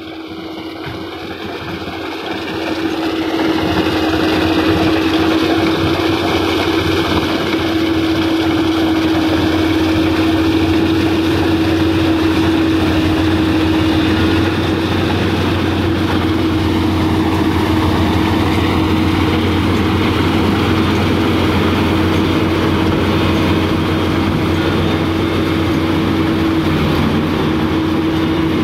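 Kubota DC-35 combine harvester running while it cuts and threshes rice: a loud, steady machine drone with a constant whine. It grows louder over the first few seconds, then holds even.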